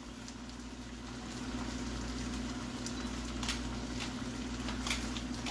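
Sweet and sour chicken sauce simmering in a frying pan on low heat: a soft bubbling haze over a steady low hum, with a few faint sharp clicks.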